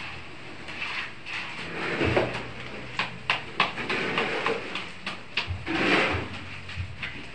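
Gravel scraping and rattling on a rough concrete floor as a bucket of stones is handled. There are several scraping swishes, and a run of sharp clicks of stones knocking together from about three to five and a half seconds in.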